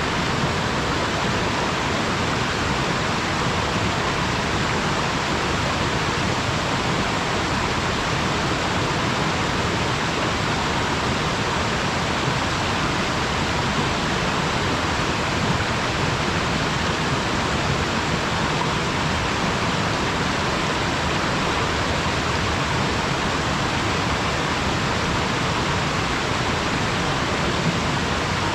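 Waterfall, a steady rushing of falling water.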